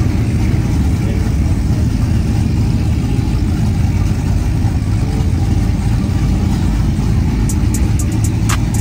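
Steady low engine and exhaust rumble of pickup trucks cruising slowly past. A run of short, sharp clicks comes in near the end.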